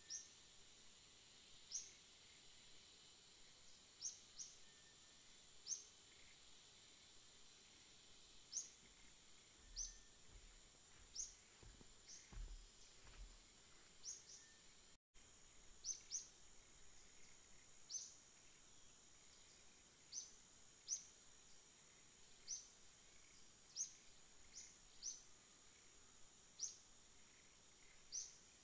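Faint outdoor ambience: a steady high-pitched insect drone, with short high chirps repeating irregularly about once a second. A brief low rumble comes near the middle, and the sound cuts out for an instant about halfway.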